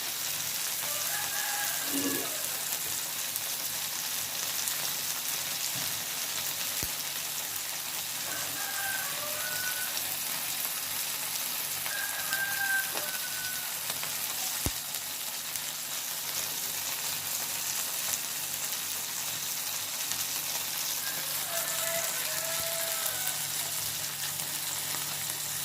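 Hot oil sizzling steadily as food fries in a pan, with a couple of faint clicks.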